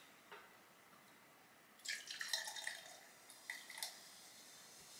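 Hard seltzer poured from an aluminium can into a drinking glass: a faint, uneven trickle and splash starting about two seconds in and dying away a couple of seconds later.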